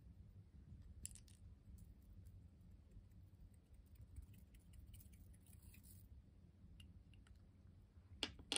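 Faint plastic clicks and light ticking as a small container of red sprinkles is opened and shaken out over slime, with a short hiss of pouring in the middle and two sharper clicks near the end.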